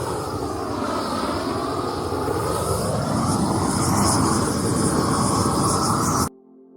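Gas torch flame burning steadily as it chars the sawmill-slab boards, with a rushing sound whose pitch sweeps down and back up as the flame moves. It cuts off suddenly near the end, and faint soft music follows.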